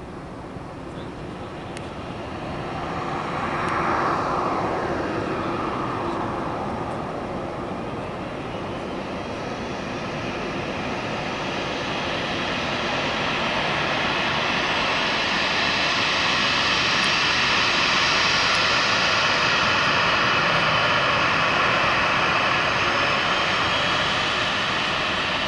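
Jet engines of an ANA Boeing 737 airliner running at low thrust as it taxis along the runway after landing, a steady jet whine. The whine swells briefly a few seconds in, then grows gradually louder and higher-sounding through the second half.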